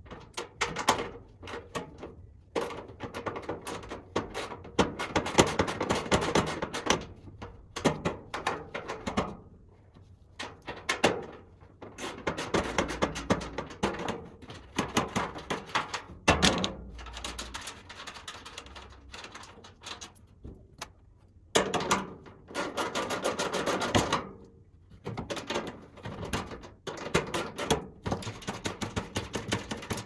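Irregular runs of rapid clicking and clattering with knocks, from hand tools and the sheet-metal blower housing of a ducted air conditioner being dismantled.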